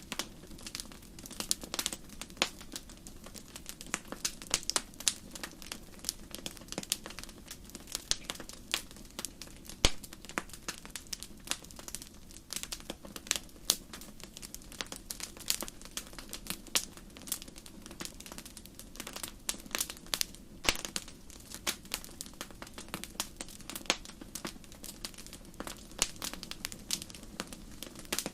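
Wood campfire crackling: irregular sharp pops and snaps over a low steady hiss of burning.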